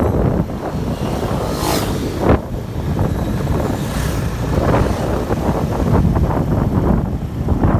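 Wind buffeting the microphone of a motorcycle riding at speed, over the bike's road and running noise, with a sharper gust about two seconds in.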